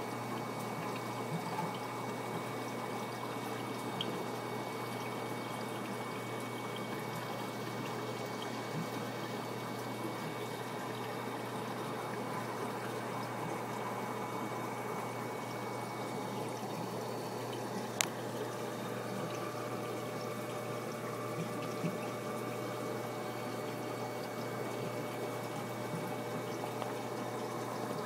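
Steady trickling and bubbling of water in a goldfish fry tub, with a low steady hum underneath. A single sharp click sounds once about eighteen seconds in.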